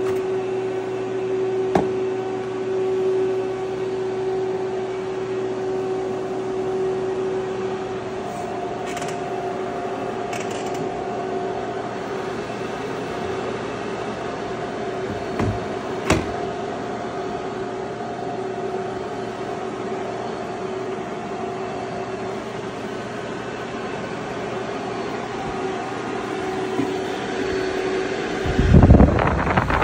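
Steady electrical hum with a clear tone from the running cooling fans of a FANUC R-30iB robot controller cabinet, broken by a couple of sharp clicks. Near the end a loud gusty rush of fan air hits the microphone.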